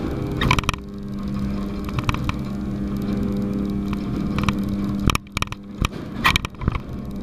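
Conveyor and machinery noise of an electron beam irradiator, picked up from inside a lead-shielded camera box riding through it: a steady hum with a low tone, broken by clicks and knocks. About five seconds in the hum drops out, leaving a few sharp clicks.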